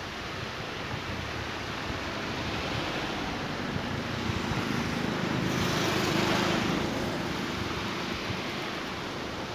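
Steady rushing of wind on a phone microphone over open lake water, with a low rumble underneath, swelling louder for a couple of seconds just past the middle before settling back.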